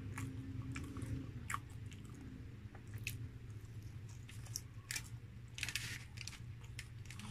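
Close-up mouth sounds of french fries being chewed, with scattered wet clicks. Near the end comes a short crinkle of aluminium foil as fingers press into it.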